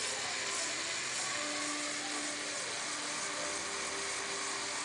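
Plastic gears and driveshafts of a LEGO Technic truck drivetrain running, an even high whirring rush that starts abruptly, over background music.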